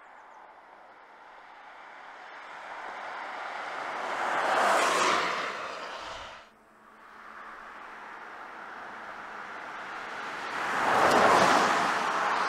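Porsche Taycan electric car passing by twice on a wet road: the hiss of tyres on wet asphalt swells as it approaches and fades as it goes, with no engine note. The first pass peaks about five seconds in and breaks off suddenly about a second later; the second rises to a peak near the end.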